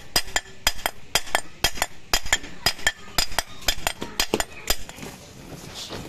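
Quick series of sharp metallic taps and clinks, about three to four a second, stopping about five seconds in. The taps come from work on an Aprilia SR scooter's aluminium gearbox cover as new bearings are fitted.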